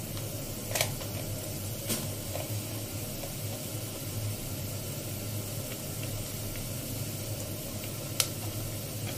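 Spices frying in hot oil in a pressure cooker for a tadka: a steady low sizzle. Three short sharp clicks stand out about one, two and eight seconds in, the last the loudest.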